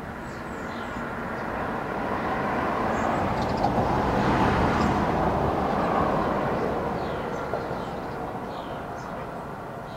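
A passing vehicle's noise swells slowly, is loudest about halfway through, then fades away. Faint bird chirps sound now and then.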